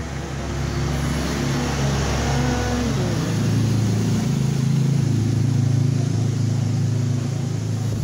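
A motor vehicle engine running steadily close by, getting somewhat louder about three seconds in.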